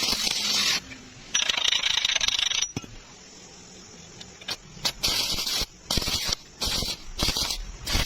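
Steel rebar being welded: hissing, crackling bursts that start and stop. There is a long burst near the start, another about one and a half seconds in, then a run of short bursts in the second half.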